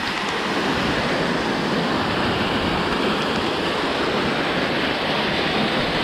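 River water pouring over a low stone dam wall and rushing down the rocky spillway close by: a steady, loud, even rush of white water.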